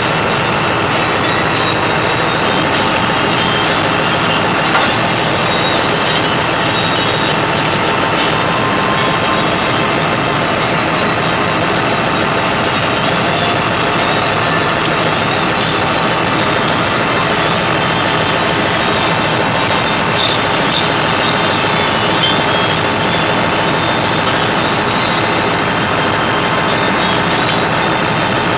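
An engine idling steadily and loudly, with a few faint clicks over it.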